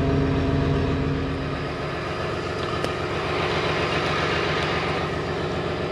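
Heavy equipment's diesel engine running steadily at low revs. The engine note shifts and becomes hissier about two seconds in.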